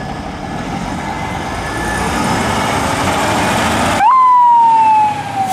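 Fire engine's diesel engine running and growing louder as it pulls past. About four seconds in, a loud siren blast rises sharply and then slides slowly down in pitch for about a second before cutting off.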